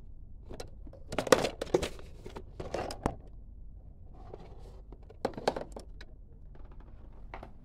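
Handling noises: rustling with sharp clicks and light knocks in two bursts, the louder one about a second in and a shorter one about five seconds in.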